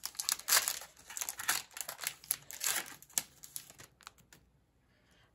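Trading-card pack wrapper crinkling and tearing as it is ripped open and pulled off the cards, a dense crackle that dies away after about three and a half seconds.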